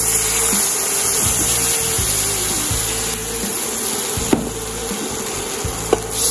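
Milk poured into a hot browned-flour roux in a nonstick pan, sizzling and hissing steadily as it boils up on contact; the hiss starts suddenly as the milk goes in. Two light clicks from the spatula come near the end.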